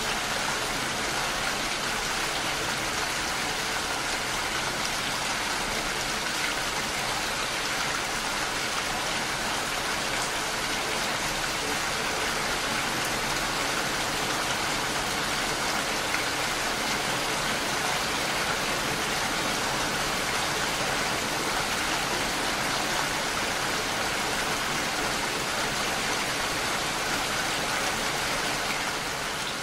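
Steady rain falling: an even hiss of raindrops.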